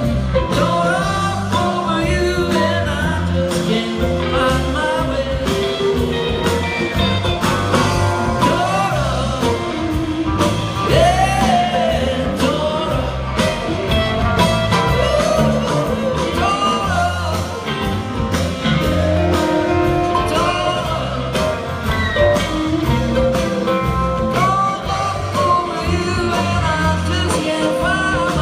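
Live band playing an up-tempo rock-and-roll song with drums, guitars and singing over a steady beat, heard from among the audience.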